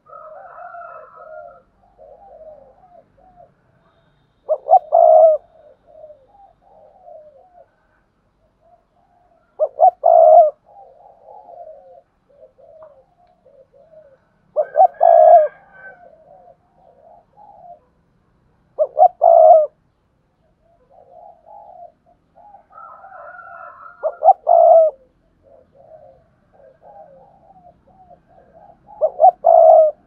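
Spotted dove cooing: six loud coo phrases, one about every five seconds, with softer low coos in between.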